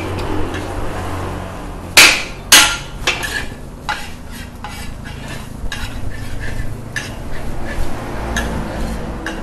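Long metal spatula scraping and stirring fried rice around a large metal wok in a run of short strokes. About two seconds in there are two loud metal clangs, half a second apart.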